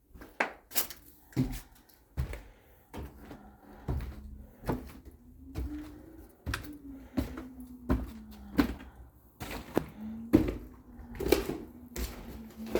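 Irregular knocks and thuds from demolition work, roughly one a second, some louder than others. A faint steady low hum comes in a few seconds in.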